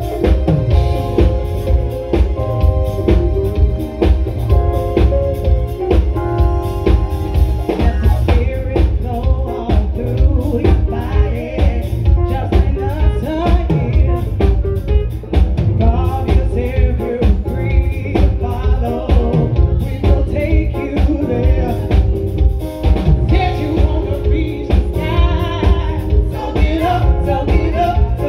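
Live band playing: a female vocalist singing through a microphone and PA over a steady drum-kit beat, electric guitar and keyboard. Sustained keyboard chords stand out for the first several seconds.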